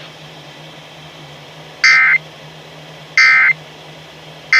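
Emergency Alert System end-of-message signal on the radio: short bursts of warbling two-tone SAME data tones about 1.3 s apart, two in full and a third starting at the very end, marking the end of the alert. Between the bursts there is steady radio hiss and a low hum.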